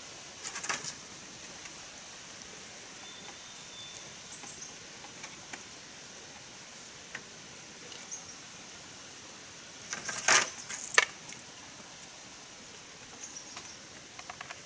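Quiet forest background with a steady high-pitched insect drone. A few brief knocks and rustles of bamboo being handled break in, the loudest pair about ten seconds in and a smaller one near the start.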